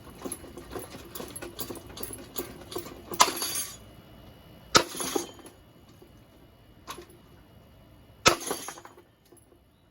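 Harbor Breeze ceiling fan being knocked apart: a quick run of light clicks and knocks for about three seconds, then three loud clattering hits, each with a short rattle, the second about a second and a half after the first and the third some three and a half seconds later, with one smaller knock between.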